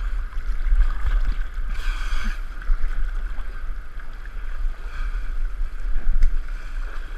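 Fast river current rushing and splashing right at the microphone, which rides just above the water, with a steady low buffeting rumble on the microphone throughout and a louder splash of water about two seconds in.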